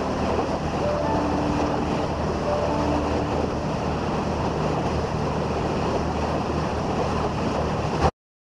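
Boat's bow running through rough sea: a steady rush of water and spray, with wind buffeting the microphone. It cuts off abruptly just before the end.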